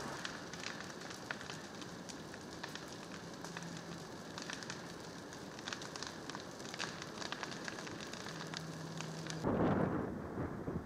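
Wildfire burning through vegetation, a steady rushing hiss full of quick crackles and pops. About a second before the end a louder, deeper rush swells up briefly.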